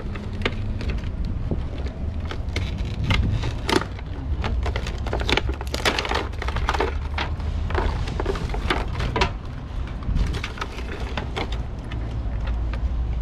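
Plastic packaging crinkling and crackling as it is torn open and handled, in a dense run of irregular sharp crackles that thickens in the middle, over a steady low rumble.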